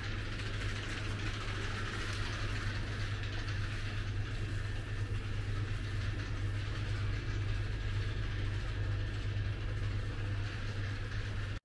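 Steady background noise of a large supermarket: a constant low hum with a hiss above it.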